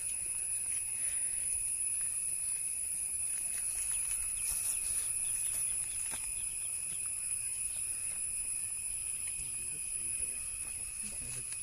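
Steady high-pitched insect chorus, crickets or cicadas, holding two even tones throughout over a low background hiss.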